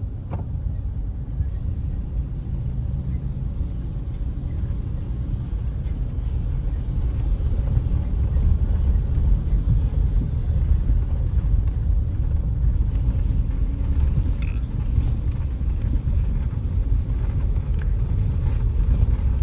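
Car in motion heard from inside the cabin: a steady low rumble of engine and tyres on the road, growing somewhat louder about eight seconds in.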